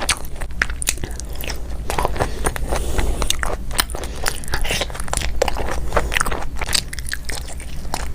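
Close-miked mouth sounds of a person biting and chewing food, a dense, irregular run of short clicks throughout.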